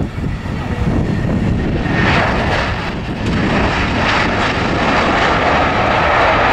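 Jet engine noise of an Airbus A320 airliner touching down and rolling out along the runway. It is loud and continuous, and grows louder and brighter about two seconds in.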